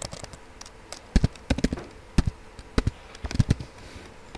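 Typing on a computer keyboard: a run of uneven key clicks as a word is typed.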